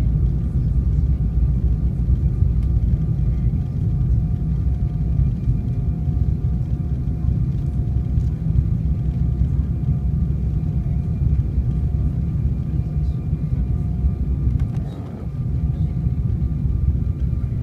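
Cabin noise inside an Embraer E190 airliner on approach: a steady low rumble of the jet engines and airflow, with a faint steady whine above it. The rumble dips briefly near the end.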